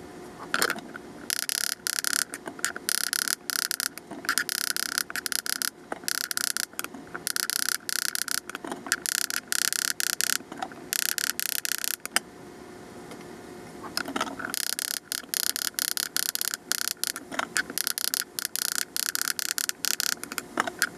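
Chef's knife slicing mushrooms on a wooden cutting board: a rapid, sped-up run of blade taps against the board, breaking off for about two seconds roughly two-thirds of the way through before resuming.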